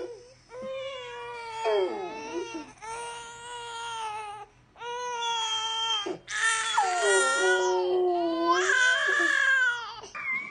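A baby crying in long wailing cries with short breaks between them. In the second half a dog howls along with it, with head raised.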